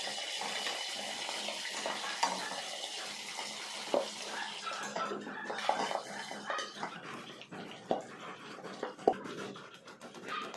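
Pork belly deep-frying in hot oil in a lidded pot: a steady sizzle that thins toward the end, broken in the second half by scattered pops and a few sharp clicks.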